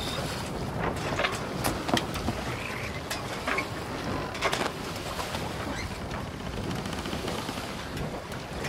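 Wind rumbling on the microphone, with a scatter of sharp clicks and knocks in the first half.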